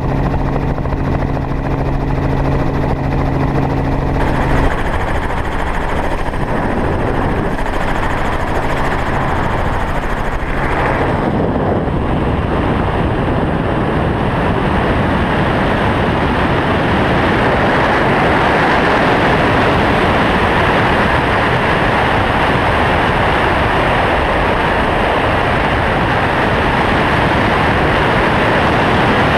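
Helicopter noise: a steady low hum with tones for the first few seconds, giving way to a loud, even rushing noise that builds from about twelve seconds in and holds.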